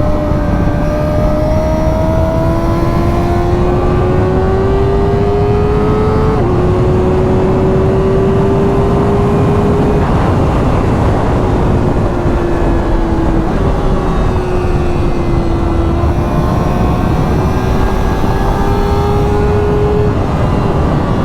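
Kawasaki ZX-4RR's inline-four engine, fitted with a Graves carbon slip-on exhaust, running under way on the road. The engine note climbs slowly, steps down in pitch about six seconds in, then rises and falls gently, over a steady rush of noise.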